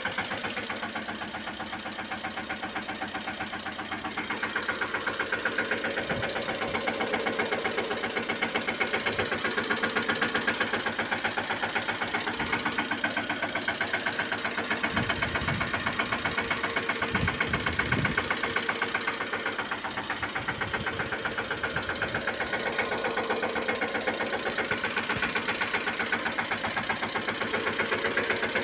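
Mahindra Yuvraj 215 mini tractor's single-cylinder diesel engine running steadily at idle with a fast, even knock of firing strokes. A few low thuds come about halfway through.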